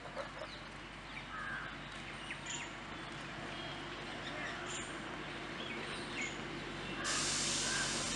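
Birds chirping and crows cawing over a low steady engine hum from a distant narrow-gauge diesel locomotive. A steady hiss starts suddenly about seven seconds in.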